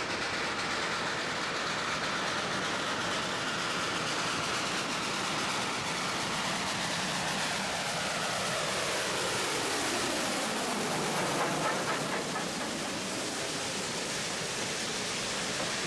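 Steam locomotive hauling a passenger train, working past at close range: a steady rush of exhaust and running noise. A tone glides down in pitch over several seconds, bottoming out about ten seconds in, then rises again as the passenger coaches roll by.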